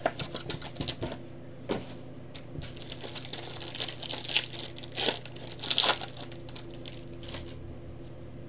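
Plastic wrapping on a 2020 Topps Tier One baseball card box crinkling and tearing as it is opened by hand: a run of sharp crackles for about six seconds, then stopping, leaving only a low steady hum.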